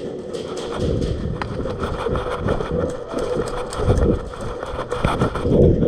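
Running footsteps, heavy thumps about one or two a second, with gear rattling and clicking.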